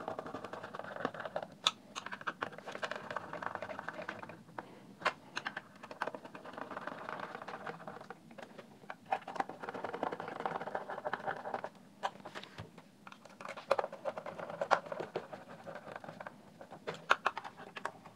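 Irregular light clicks, taps and scraping of hands handling plastic parts and ribbon cables while fitting a speaker enclosure back into the Saregama Carvaan's plastic case.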